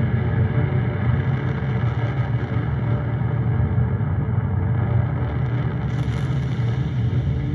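Synthesizer music: a dense, steady low drone with many held tones stacked above it, and a faint high shimmer entering about six seconds in.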